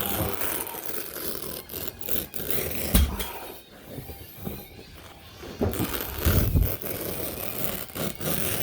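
Carpet being cut freehand with a utility knife and handled on the floor: scraping and rubbing, with a few knocks and a heavier thump a little past the middle.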